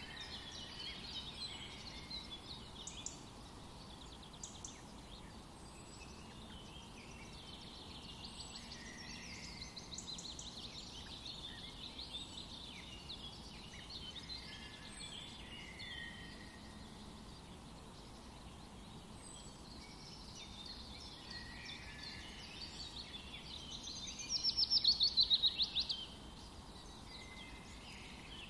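Songbirds chirping and warbling, with a loud rapid trill near the end.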